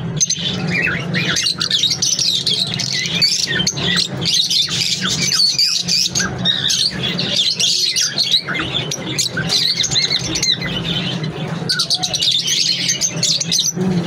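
A caged flock of lovebirds chattering: many shrill chirps and squawks overlapping without a break. A steady low hum runs underneath.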